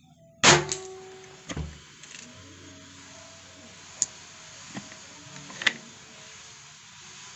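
PCP air rifle fires a single shot: a sharp, loud pop with a brief ring about half a second in, then a weaker dull thump about a second later and a few light clicks.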